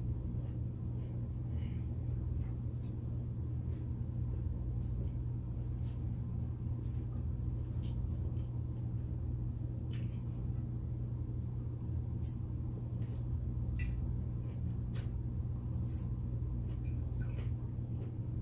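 Someone eating close to the microphone: scattered short clicks and smacks of chewing at irregular moments, over a steady low hum.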